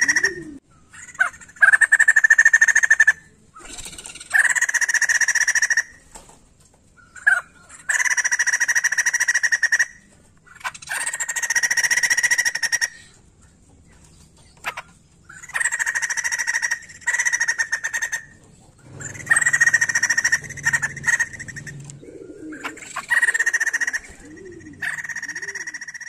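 White-crested laughingthrush (poksay jambul) calling in a series of about ten loud, rapid chattering phrases, each up to two seconds long, separated by short pauses.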